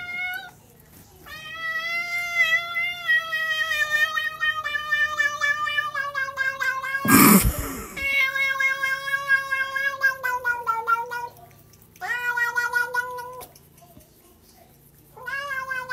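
Domestic cat yowling: one long, unbroken yowl of about ten seconds that sinks slowly in pitch, then two shorter yowls near the end. About halfway through the long yowl, a brief burst of noise is the loudest moment.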